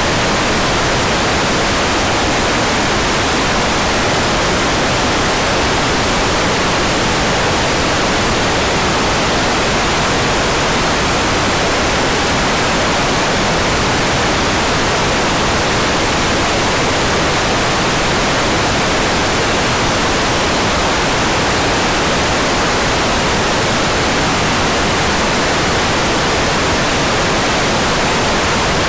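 Hair dryer running steadily, a constant even rush of blown air with no change in level or pitch.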